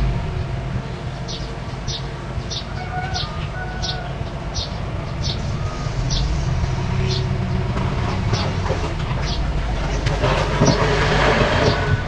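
Small crawler bulldozer's diesel engine running steadily, with a regular sharp clank from its tracks about every two-thirds of a second. A louder rush of noise comes up near the end.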